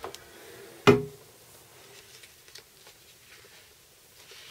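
A single sharp clunk about a second in, then faint rustling as the pressed T-shirt and its transfer paper are handled.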